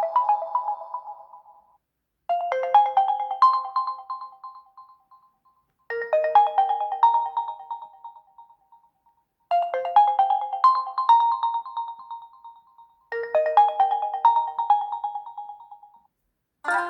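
A Realme C25s ringtone: a short melody of quick, bright notes that fades out and repeats about every three and a half seconds, four times over. Just before the end, a different ringtone with plucked-string notes begins.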